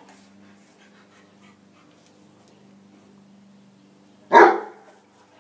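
A hound gives one loud bark about four seconds in, lasting about half a second.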